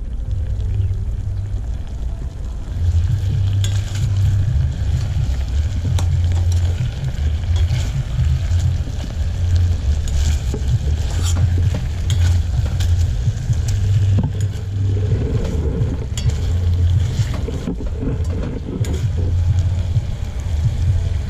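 Uneven low wind rumble buffeting the microphone, with a metal spoon clinking and scraping against a stainless steel pot as chicken pieces are stirred.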